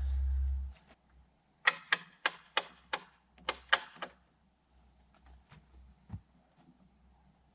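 A quick run of about eight sharp clicks or knocks, roughly three a second, after a brief low rumble, then a few faint ticks.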